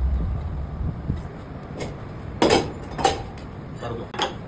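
A few sharp knocks of hard objects striking, the two loudest about half a second apart, with a smaller one near the end, after a low rumble dies away.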